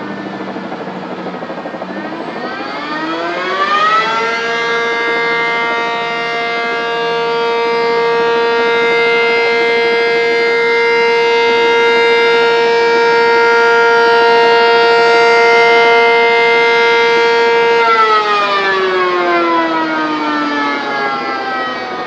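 Outdoor air-raid-type warning siren sounding for the refinery fire. It winds up over a couple of seconds, holds one steady wailing pitch for about 13 seconds, then winds down near the end.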